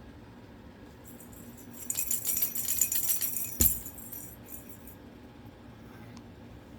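Metal bells on a bird toy jingling and rattling hard for about two seconds, ending in a sharp knock.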